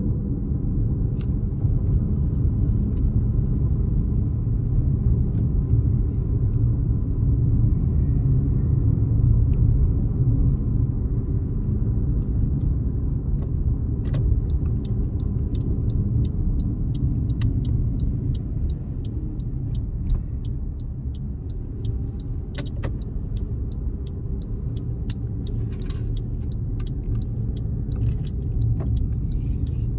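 Steady low rumble of a car being driven on the road, with scattered light clicks in the second half.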